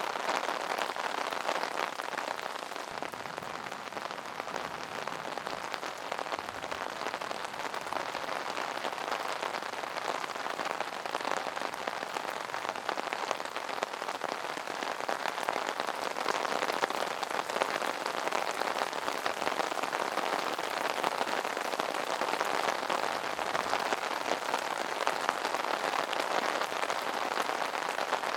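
Steady rain falling on an umbrella: a dense, even patter of drops on the fabric canopy.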